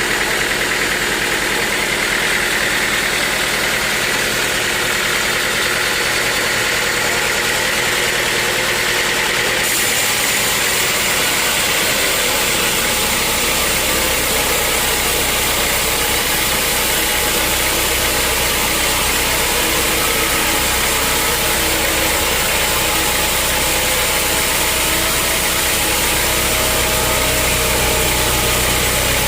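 Sawmill machinery running steadily with a loud, even mechanical noise. The sound changes character about ten seconds in and grows heavier in the low end soon after.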